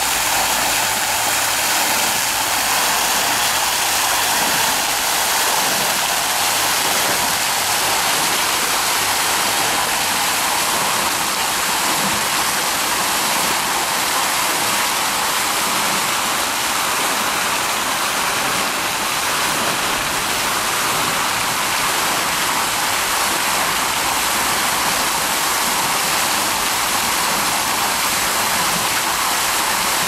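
Garden water fountain running: fan jet nozzles and a tall vertical jet spraying and splashing into the basin, a steady rushing hiss of falling water.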